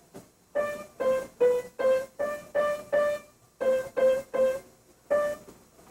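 Single notes picked out one at a time on a keyboard instrument, about three a second, mostly alternating between two neighbouring pitches, with a couple of short pauses.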